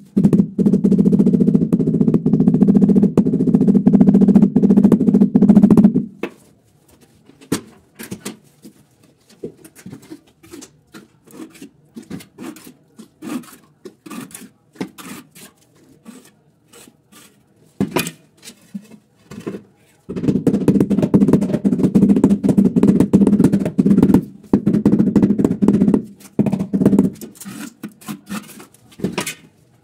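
Fast, dull knocking on a ceramic floor tile to bed it down into wet cement adhesive, in two long runs, one at the start and one about two-thirds of the way in. Between them come scattered single taps and clicks of tile and tool handling.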